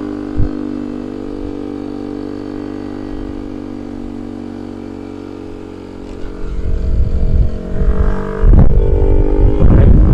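Honda ADV 160 scooter's single-cylinder engine running steadily while riding. From about six seconds in, wind buffets the microphone, growing loud and covering the engine near the end.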